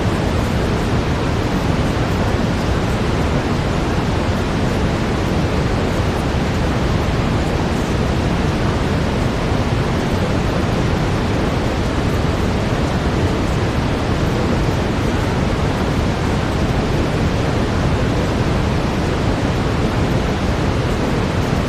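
Steady brown noise: an even, continuous rushing hiss, heavier in the low end, with no changes.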